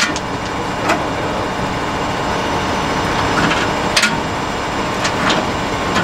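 Tractor engine idling steadily, with about four sharp knocks over it, the loudest right at the start and about four seconds in.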